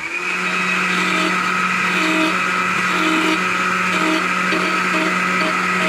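Electric chainsaw spinning up at the start, then running at a steady high pitch as the nose of its bar trims a small wooden heart carving.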